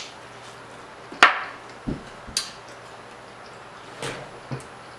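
Eating sounds from a mouthful of barbecue rib being chewed: a few separate sharp, wet mouth clicks and smacks, the loudest about a second in and a couple more near the end, with two dull low knocks around two seconds.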